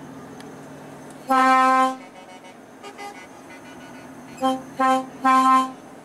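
Truck horn sounding, one steady note with strong overtones: a long blast about a second in, then three blasts near the end, two short and a longer last one, over the steady drone of the cab.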